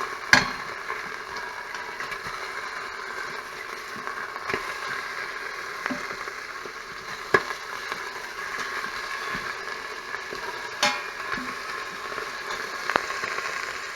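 Pork chops sizzling steadily as they sear in an Instant Pot's stainless steel liner, with a few sharp pops or clicks scattered through.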